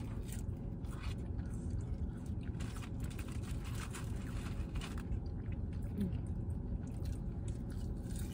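People chewing and biting fried food (waffle fries), with scattered small crunches and mouth clicks over a steady low background rumble inside a car.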